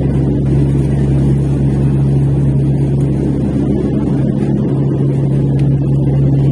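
Steady low drone of an airliner in flight, heard inside the cabin.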